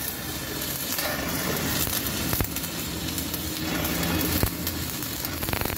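Electric arc welding on a broken wheel hub: a steady crackling hiss with a low hum underneath.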